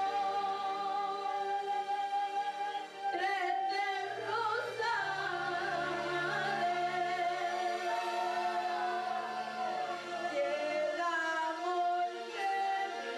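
Slow, devotional-sounding music: a voice sings long held notes that glide between pitches, over steady sustained low tones.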